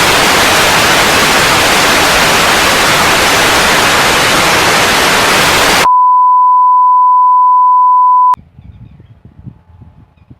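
Loud static hiss, like a television's white noise, for about six seconds, then a single steady pure beep for about two and a half seconds that cuts off with a click; much quieter faint sounds follow.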